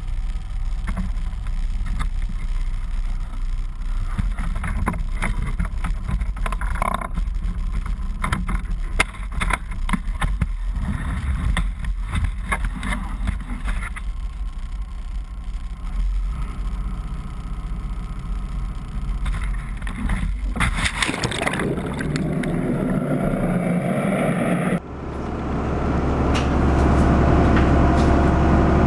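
Lobster boat's engine running steadily, with knocks and rattles from a wire lobster trap being handled on deck. Near the end the engine sounds louder and fuller.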